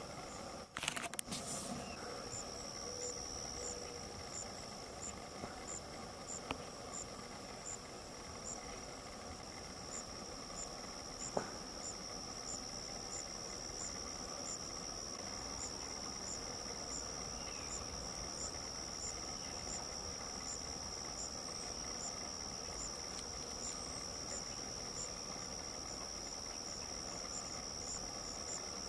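Insects trilling steadily and high-pitched, with a fainter chirp repeating a little more than once a second. A short burst of sharp clicks comes about a second in, and a single click just past the middle.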